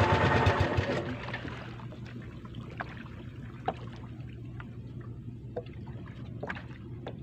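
A small boat's engine runs loudly and stops suddenly about a second in. After that come faint water trickling and scattered small drips and ticks as a handline is hauled in hand over hand.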